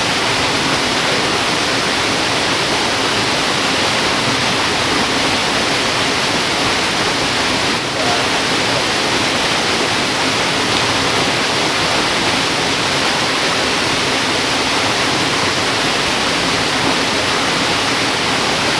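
Steady rush of flowing river water, an even, unbroken hiss of moving water.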